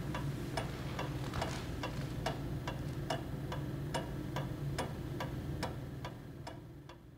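Edward East table clock of about 1661 ticking steadily, its short bob pendulum driving a verge escapement at a little over two ticks a second. The ticks fade out near the end.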